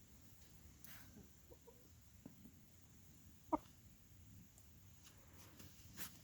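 Faint, soft clucking of hens settling on the roost for the night, with a single short, sharp call about three and a half seconds in.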